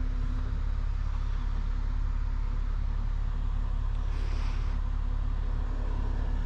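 Steady low drone of a heavy wrecker's diesel engine running to power the winch during the pull, with a brief hiss about four seconds in.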